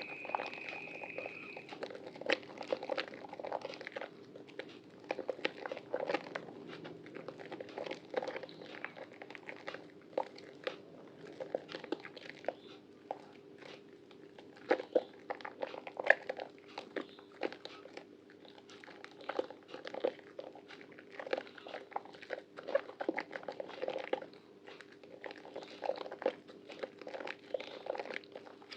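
Soaked Prima Protect White bar soap being lathered and squeezed by hand: irregular wet squelching and crackling, with sharper crunchy pops now and then.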